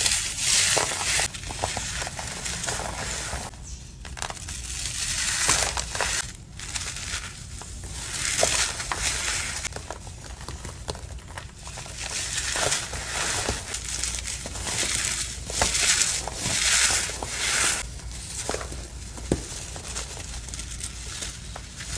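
Dry, powdery material being crushed: a crunching and crumbling that comes in bursts of a second or two, with short pauses and a few sharp cracks between them.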